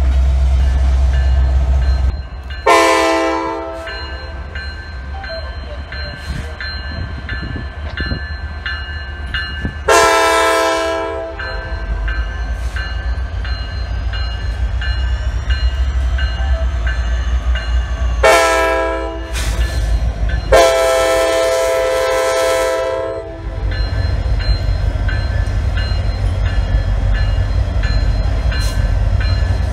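Diesel locomotive's multi-chime air horn sounding four blasts, two long, one short, one long: the pattern of the signal for a grade crossing. The train's steady low rumble runs beneath and grows louder near the end as it passes close.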